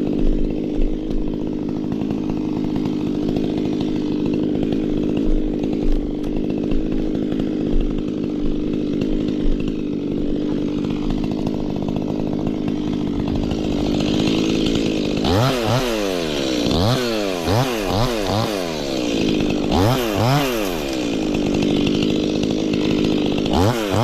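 Stihl two-stroke chainsaw running at a steady high speed for about fifteen seconds, then revved up and down over and over, about once a second, with a short steady run between and more revving near the end.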